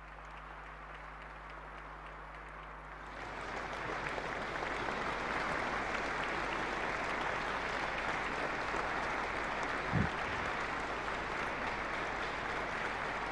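Audience applauding, faint at first and swelling about three seconds in into sustained clapping, with one brief low thump about ten seconds in.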